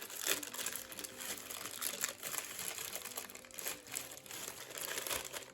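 Plastic packaging being handled and crinkled, in short irregular crackles.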